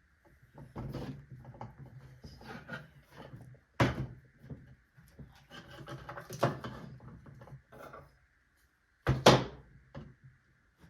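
Small wooden doll chair being handled while its cushioned seat is pressed down into the glue: irregular rubbing and knocking, with two sharp knocks about four and nine seconds in.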